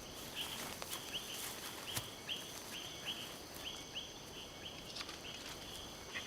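Tropical forest ambience: a short chirping call repeated about three times a second over a steady high whine, with scattered light rustles and clicks.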